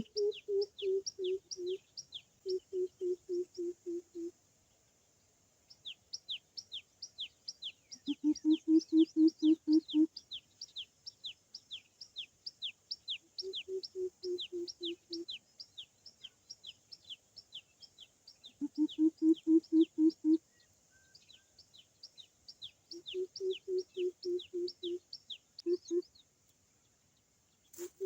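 Greater coucals calling: bouts of deep, evenly spaced hoots about two seconds long, one lower-pitched voice and one higher answering in turn. Over them a small bird keeps up a rapid run of high, downward-sweeping chirps.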